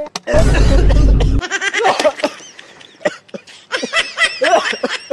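A loud, harsh burst lasting about a second near the start, followed by snickering laughter in short rising and falling bursts.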